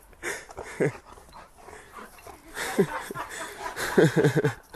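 Golden retriever whining and yipping in short cries that fall in pitch, with a quick run of yips near the end.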